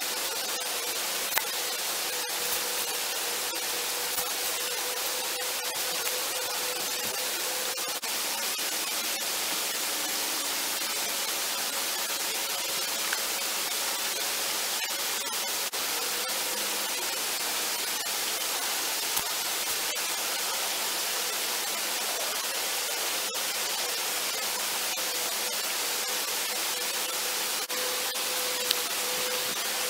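A steady, even hiss with a faint steady hum underneath and a few faint clicks here and there.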